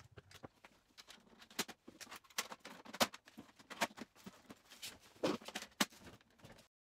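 Irregular run of sharp clicks and knocks from the plastic covers and trays of an HP OfficeJet Pro 8710 inkjet printer as it is handled and moved. Faint rustling comes between the knocks.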